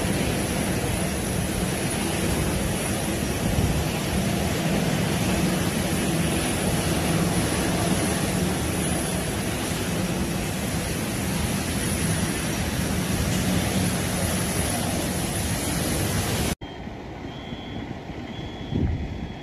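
Steady, loud rush of water gushing up into a flooded underground area, with a low hum under it. Near the end it cuts to something quieter, where a high beep repeats about four times.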